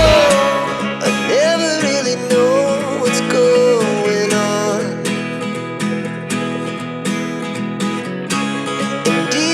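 Background music led by plucked acoustic guitar, with a steady beat coming in about halfway through.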